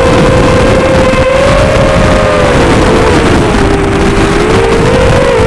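FPV quadcopter's motors and propellers buzzing in flight, the pitch sinking a little past the middle and climbing again near the end as the throttle changes.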